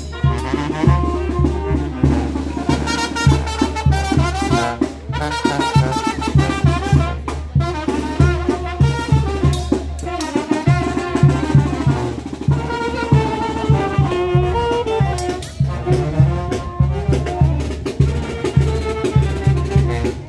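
Brass band music, trumpets over a steady bass and drum beat.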